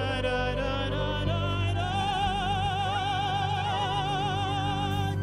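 Music: a singer holds a long note with wide, even vibrato over the accompaniment, and it cuts off abruptly at the end.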